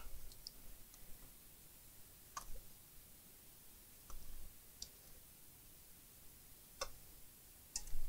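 A handful of faint, separate clicks and small taps as cable connectors and tweezers are handled inside an opened all-in-one computer's chassis.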